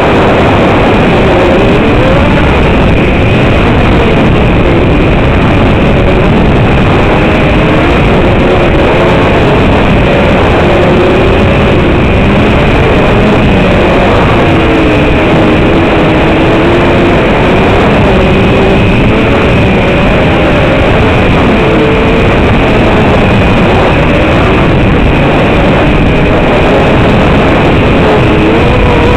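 LKTR 120 FPV racing quadcopter's motors whining, their pitch rising and falling with throttle, under a loud constant hiss and a steady high tone.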